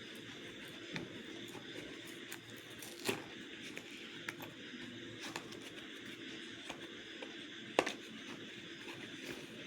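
Slate pencils and their packaging being handled: light rustling and scraping over a steady hiss, with a few sharp clicks, the loudest near the end.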